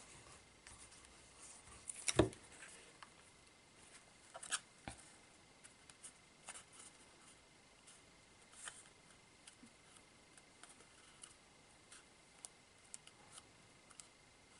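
Cardstock being handled while a box's sides are glued and pressed together: faint scattered taps and paper rustles, with a louder knock about two seconds in and two more just before the five-second mark.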